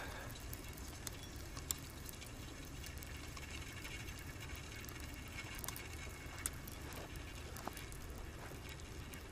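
Faint dripping and light splashing of water, with a few sharp small clicks, over a steady low hum.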